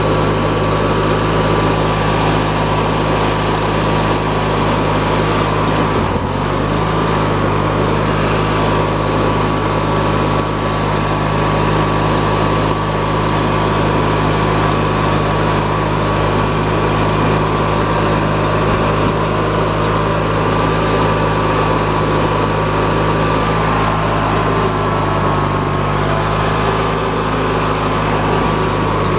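Murray hydrostatic riding mower's engine running steadily under way, with a brief shift in pitch about six seconds in.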